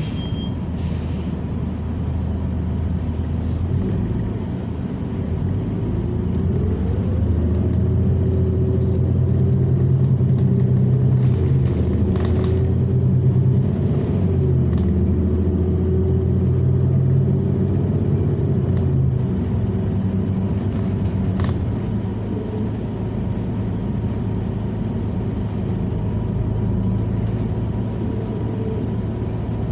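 New Flyer XN40 natural-gas city bus driving, heard from inside: a steady low engine and drivetrain hum that rises in pitch and loudness as the bus picks up speed a few seconds in, then eases off after about twenty seconds. A few light knocks and rattles come through.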